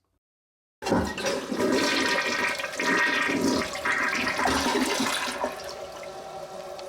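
Mansfield toilet flushing with its newly replaced 210/211 flush valve seal: a rush of water starts suddenly about a second in, stays loud for several seconds, then eases off.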